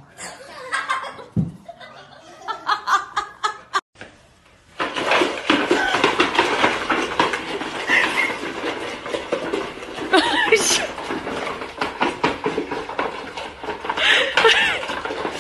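People laughing, mixed with some talk. The sound breaks off for a moment about four seconds in, then comes back louder and busier.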